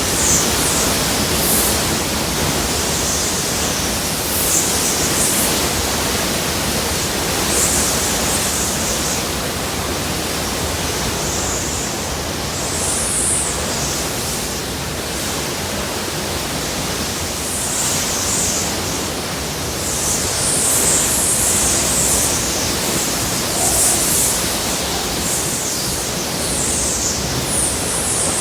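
Hurricane-force wind and driving rain: a loud, steady rush, with gusts that surge and fade every few seconds.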